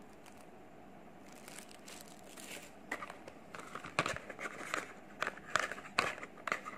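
Packaging being handled: after a quiet first second or so, plastic and cardboard rustling and crinkling, with several sharp taps and knocks as the tablet box's white cardboard inner compartment is lifted and opened.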